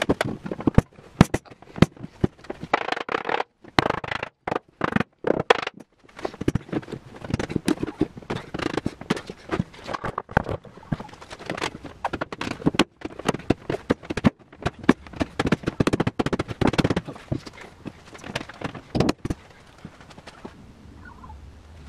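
Irregular wooden knocks, clunks and scrapes as a tight hardwood shelf is wiggled and pried loose from its slots in a timber cabinet carcass and pulled out. The noise dies down near the end once the board is free.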